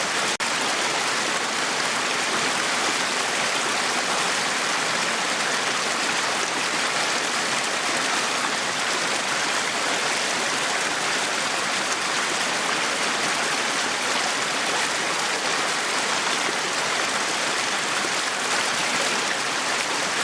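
Small brook flowing and splashing over stones, a steady rushing babble with a momentary dropout just after the start.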